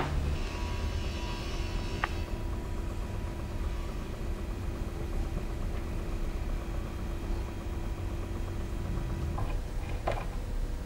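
Record turntable spinning: a steady low hum and rumble with a faint steady tone. A sharp crack comes at the very start, a single click about two seconds in, and a few soft knocks near the end.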